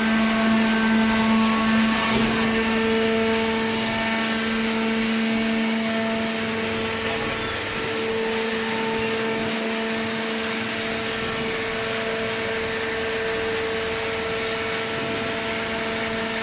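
Waste paper baler's hydraulic power unit running steadily: an electric motor and pump giving a constant hum with a steady whine over machine noise.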